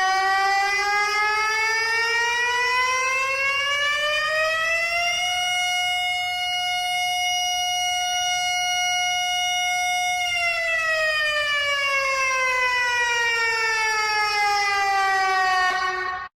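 Civil-defence warning siren sounding one long tone. It rises slowly in pitch for about five seconds, holds steady for about five seconds, then falls slowly for about six seconds before cutting off.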